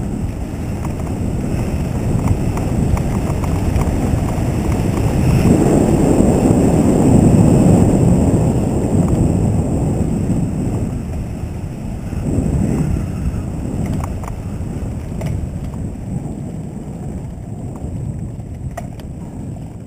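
Mountain bike riding fast down a dirt trail: wind rushing over the microphone mixed with tyre and frame rumble. It swells loudest about six to nine seconds in, and a few sharp knocks from the bike come near the end.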